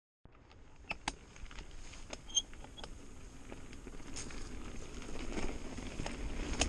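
Mountain bike rolling down a dirt trail: tyre noise on the dirt with scattered clicks and rattles from the bike, growing louder as speed picks up.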